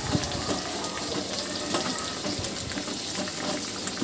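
Water boiling hard in an aluminium pot full of potato leaves, bubbling and hissing steadily, while a metal spatula turns the leaves over with a few small knocks against the pot.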